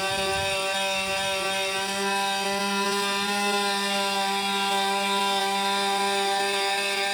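Electric power sander running steadily on wood, a constant hum with an even whine.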